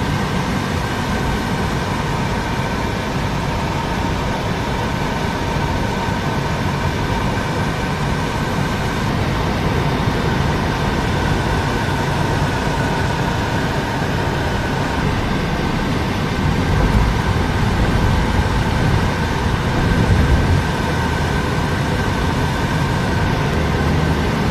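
Steady road and engine noise of a car being driven, heard from inside the cabin: an even rumble and hiss with faint steady tones through it.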